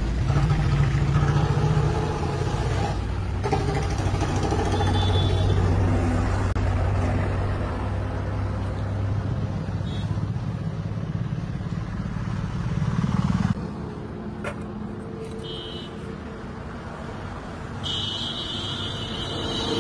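A motor vehicle engine, likely a motorcycle, running nearby with a steady low hum that drops away suddenly about two-thirds of the way through. A high steady tone sounds near the end.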